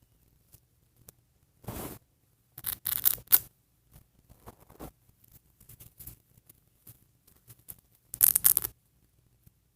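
Small plastic doll hair pieces being handled and fitted, with rasping scrapes and rustles in three short bursts: about two, three and eight and a half seconds in, with faint scratches between.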